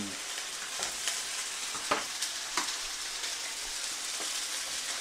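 Sausages sizzling in a hot, lightly greased cast-iron skillet: a steady frying hiss with a few sharp clicks in the first half.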